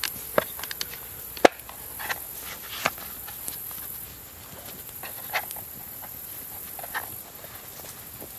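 Scattered sharp clicks and light knocks from a small black case being handled, about seven in all, the loudest about one and a half seconds in, over a steady high-pitched hiss.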